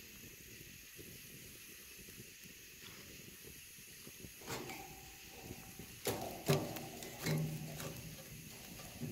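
Metal tongs and a utensil scraping and clanking against a charcoal grill's iron grate and a skillet as the coals are stirred to get the fire going again. The clanks start about halfway through and are loudest in a cluster a little later. A steady high-pitched hum sits behind them.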